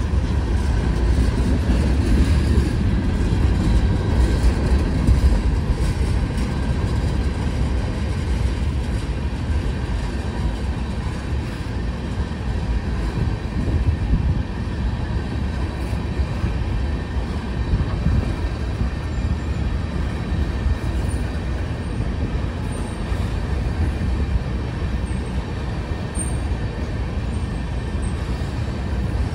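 Freight train of tank cars rolling past: a steady low rumble of steel wheels on the rails, with faint steady high tones above it.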